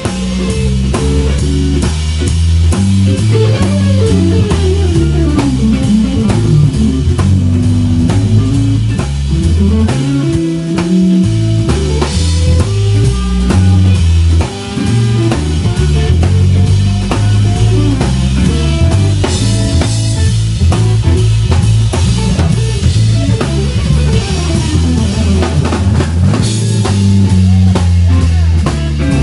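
A live electric band of electric guitar, electric bass and drum kit playing loud instrumental music, with the guitar sliding and bending notes over the bass and drums. About ten seconds in, the bass drops out for a moment.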